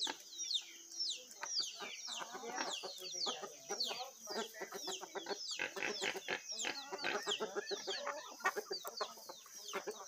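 A flock of chickens clucking together, busy and overlapping, with a steady run of short, high, falling peeps several times a second above it.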